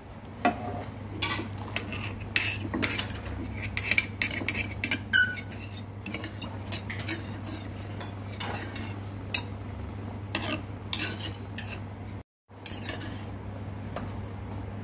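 Metal ladle clinking and knocking against the side of a cooking pot while stirring and scooping broth: a quick, irregular string of clinks through the first ten seconds or so, over a steady low hum. The sound drops out for a moment about three quarters of the way through.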